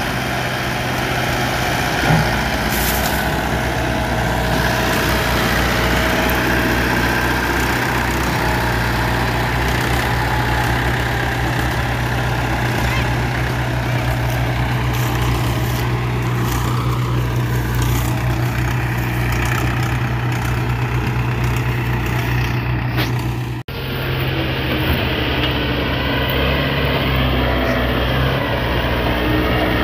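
Diesel farm tractors, among them a Mahindra 475 DI, running steadily under heavy load as they tow a loaded sugarcane trolley stuck in a soft field.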